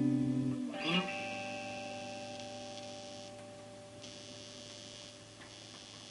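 Electric guitar through a Laney VC30 2x10 valve combo amp: a held chord dies away, a single pick stroke about a second in rings and slowly fades, leaving the amp's steady mains hum.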